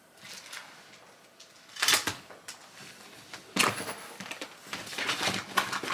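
Rustling and handling noises as clothes and other items are moved about while packing: a loud rustle about two seconds in, then a longer stretch of choppy rustling from about three and a half seconds on.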